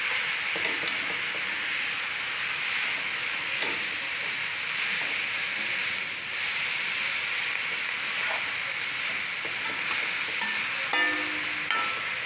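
Chopped water spinach frying in mustard oil in an aluminium kadai, a steady sizzling hiss, while a spatula stirs and turns the greens with occasional scrapes against the pan.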